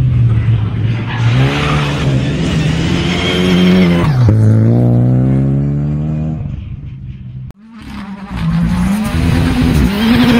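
Rally car engine revving hard at full throttle as the car passes close by; the engine note drops sharply about four seconds in and then fades away. After a sudden cut, another burst of rally engine revving starts.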